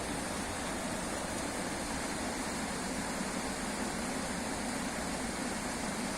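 Steady rush of flowing water, as of a river running over falls.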